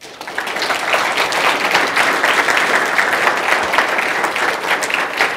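Audience applauding: dense, steady clapping that breaks out all at once at the close of a talk.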